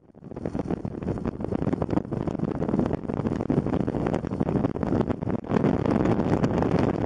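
Yamaha XT250 single-cylinder four-stroke engine running at road speed, mixed with heavy wind buffeting on the microphone. The sound fades in at the start.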